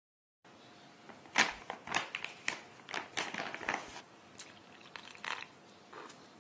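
A metal spoon scraping and clinking against bowls as homemade yeast starter is scooped into flour in a glass bowl: a run of irregular sharp clicks and scrapes, busiest in the first few seconds and then sparser.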